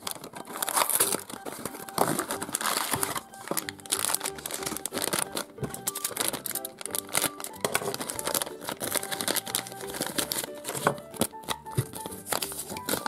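A cardboard toy box being opened, then a plastic pouch crinkling and being torn open as hands unwrap it, with many small irregular crackles, over light background music.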